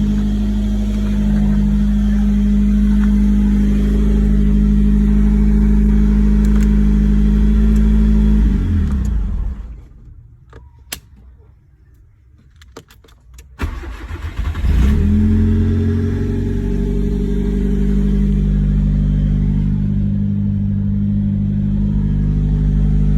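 Nissan Sunny B13's four-cylinder petrol engine idling steadily, then switched off about nine seconds in and winding down to quiet, with a few clicks. About fourteen seconds in it is cranked and catches, rising quickly, then settles back to a steady idle.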